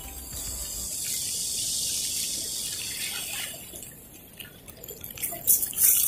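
Small waves washing onto a gravel shore, with a few sharp splashes near the end as a hooked fish is dragged through the shallows at the water's edge.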